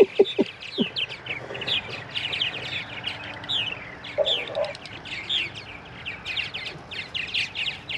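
Purple martins chirping: a rapid, continuous series of short, high, downward-sweeping chirps, with a few brief low knocks in the first second.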